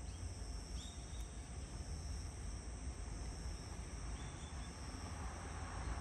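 Faint steady chorus of insects chirping high-pitched, over a low steady rumble, with a few short chirps standing out.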